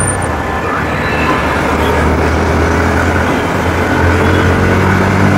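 Motorcycle riding in traffic, recorded on a phone mounted on the bike, heard as the Bajaj Pulsar NS160's single-cylinder engine running under way under heavy wind noise on the microphone. The engine note climbs a little near the end.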